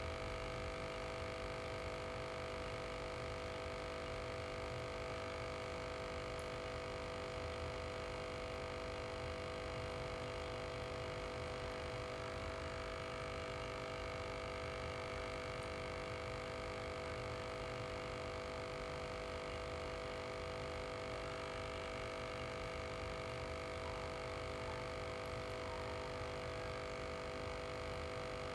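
Small aquarium air pump running with a steady electric hum that does not change.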